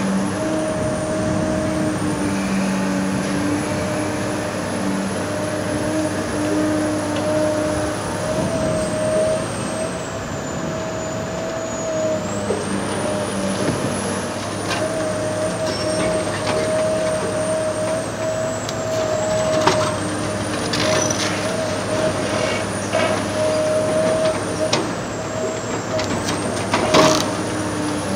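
Large hydraulic demolition excavator running steadily, its diesel engine and hydraulics giving a constant drone with a held tone. From about halfway on come scattered sharp cracks and knocks of material being broken, the loudest about a second before the end.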